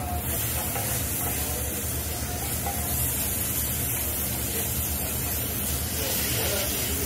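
Food sizzling on a teppanyaki iron griddle: a steady, even hiss.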